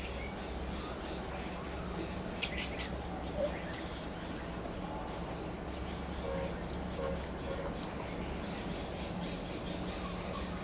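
Steady high-pitched insect drone over a low background hum, with a few short clicks about two and a half seconds in.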